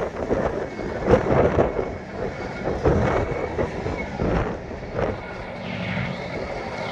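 Diesel engine of an Allis-Chalmers 920 garden tractor running as the tractor is driven slowly, with scattered irregular knocks and rattles.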